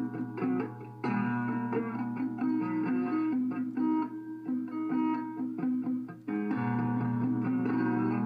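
Guitar solo music: plucked single notes moving in steps over a sustained low note, with brief dips about a second in and about six seconds in.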